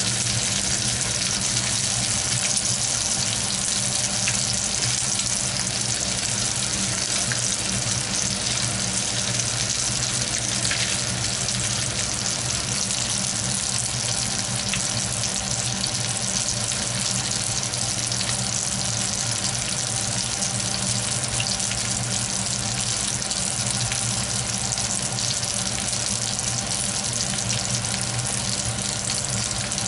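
Beef hamburger patties, broken up into crumbles, sizzling steadily in a frying pan, on a heat the cook suspects is too high. A low steady hum runs underneath.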